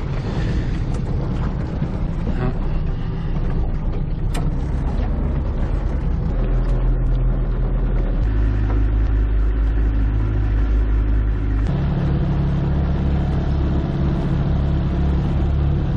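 Mercury outboard motor running steadily under load, pushing a small runabout while towing another boat. The low drone shifts abruptly in pitch several times.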